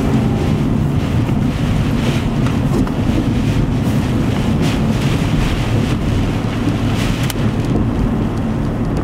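Strong storm wind gusting at 60–75 mph, buffeting the microphone with a loud, steady low rumble and occasional brief crackles.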